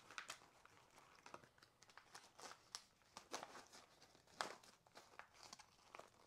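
Faint, irregular crinkling and rustling of emergency trauma dressings in their packaging being handled and packed into a small first-aid pouch.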